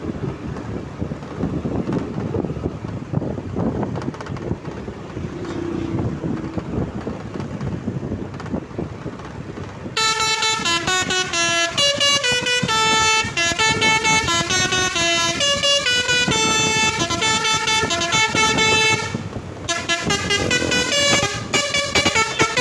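Vehicle and street noise for about the first ten seconds, then an Agra Mas bus's Basuri V3 telolet horn, a set of air horns, plays a rapid multi-note tune, breaking off briefly near the end and starting up again.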